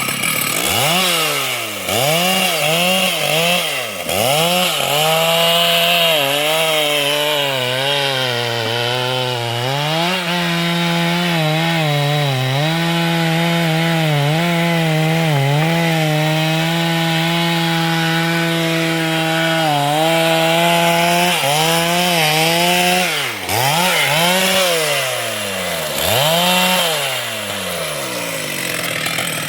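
A two-stroke chainsaw running hard and cutting wood. Its engine note rises and falls repeatedly as the throttle and load change, then settles into a lower, steady pitch under load through the middle of the cut before varying again near the end.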